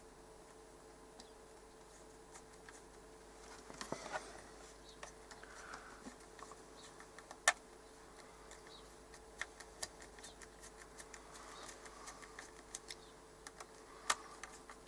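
Faint, scattered clicks and taps of small screws and a screwdriver being worked into a portable radio's case, with a sharper click about halfway through.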